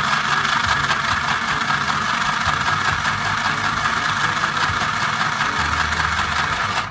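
Mini portable sewing machine running steadily under foot-pedal control, its small motor driving the needle through fabric as she sews. It stops suddenly near the end.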